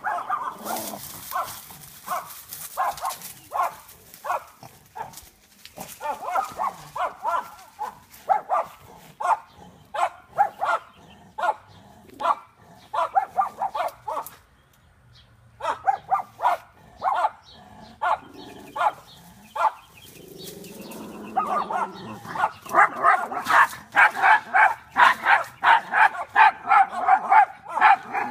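Dog barking in bouts of short, high-pitched yaps, about two a second. The yapping pauses briefly midway, then comes back fastest and loudest over the last several seconds.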